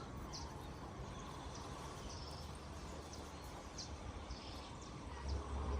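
Outdoor riverside ambience: a steady background hiss with short, high bird chirps repeating every half second to a second. A low rumble comes in near the end.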